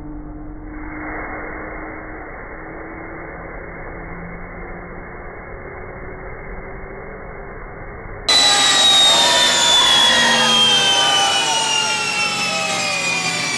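LSX V8 engine held in a dyno pull, muffled, its tone creeping slowly upward, while nitrous hisses from a hand-held bottle sprayed into the intake; the engine sounded lean on the spray. About eight seconds in the sound turns suddenly loud, with whines falling steadily in pitch as the engine and dyno wind down, and voices over them.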